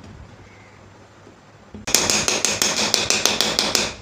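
Rapid run of sharp metallic taps on the ceiling fan's metal end plate, starting about two seconds in, about seven a second, as it is knocked into seat over the new bearing.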